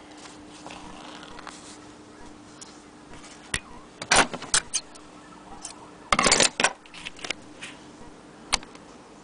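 Metal clicks and clatters from an antique sewing machine being handled at its needle and presser foot. Two short bursts of clattering come about four and six seconds in, with single clicks between, over a faint steady hum.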